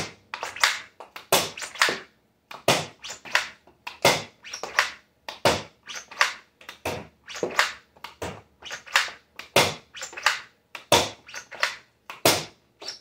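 3D-printed Nerf blaster firing foam darts one after another: a quick string of sharp clacks, about two or three a second.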